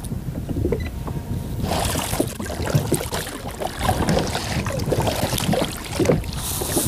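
Water lapping and slapping against a fishing kayak's hull in irregular small splashes and knocks, busier from about two seconds in, with wind rumbling on the action camera's microphone.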